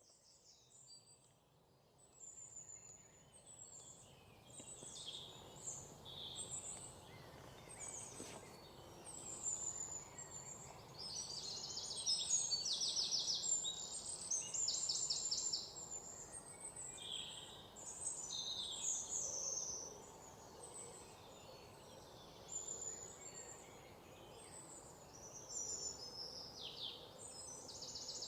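Birds chirping and singing: many short, high calls, with a few rapid trills that grow louder in the middle, over a faint steady background noise.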